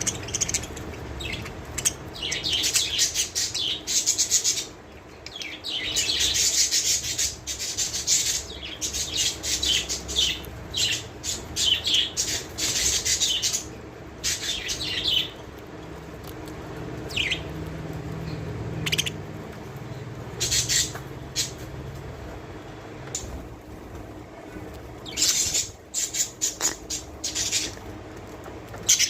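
Pet budgerigars in a cage chirping and chattering in quick short bursts, dense through the first half and more scattered later on.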